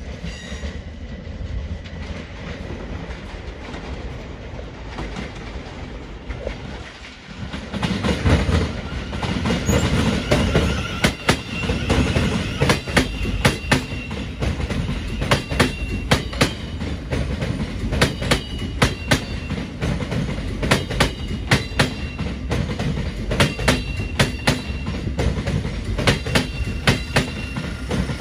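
Electric multiple-unit trains on the track: for the first seven seconds the steady rumble of a Gatwick Express Class 387 coming in over the points, then a Thameslink Class 700 rolling slowly past close by, its wheels giving an irregular run of sharp clacks over rail joints and points with brief high squeals.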